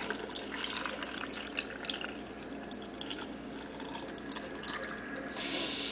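Sweetened red Kool-Aid poured in a steady stream from a bowl into a glass jar packed with pickles, trickling as the jar fills; a louder hiss about five seconds in.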